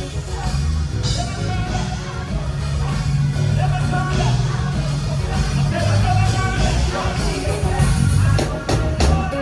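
Rock music with a singing voice over a heavy bass line, drums and guitar.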